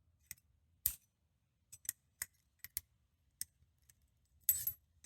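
Small metal parts of a Lockwood padlock clicking and clinking as the lock is taken apart: a string of sharp, separate clicks, the loudest about a second in, and a short metallic rattle near the end.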